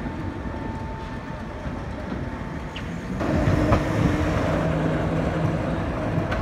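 Trams running on street rails. About three seconds in, the sound switches abruptly to a louder, closer tram going by, with a steady hum and a few sharp clicks from the wheels on the track.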